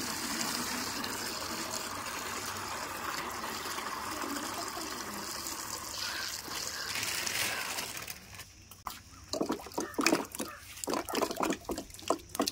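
Water poured from a metal pail into a plastic tub of water, a steady pour that stops about eight seconds in. It is followed by a quick run of short splashes as balls drop into the water.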